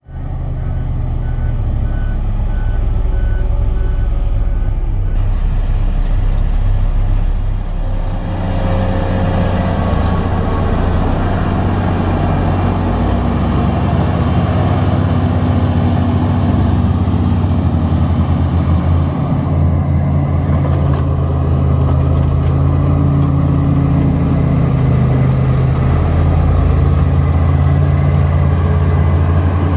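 Heavy road-construction machine's diesel engine running steadily, with a reversing alarm beeping about twice a second for the first five seconds.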